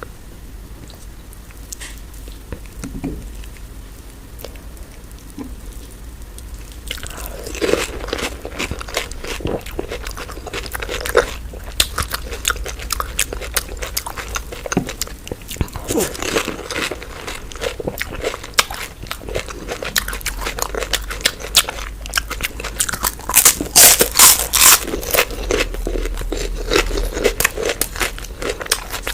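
Close-miked eating: biting into crisp food with loud crunches and chewing, quiet for the first several seconds, then crunching thick and fast, loudest a little past the middle.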